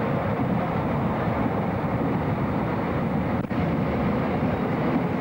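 Steady rumble of a moving passenger train heard from inside the carriage, with a brief dropout about three and a half seconds in.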